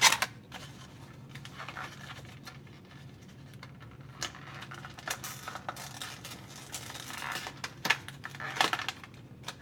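Decoder packaging being opened and handled off-camera: a cardboard box and plastic bag giving scattered crinkles, rustles and small clicks.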